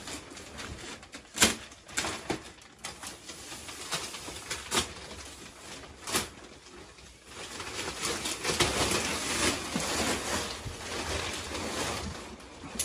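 Thin plastic sheeting crinkling and rustling as it is pulled off a box spring, with a few sharp cracks in the first half; the rustling becomes louder and more continuous in the second half.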